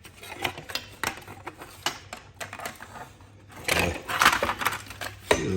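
Metal clicking and clattering as a small safe's lock mechanism is worked on by hand, with a louder scraping rattle of metal parts about four seconds in.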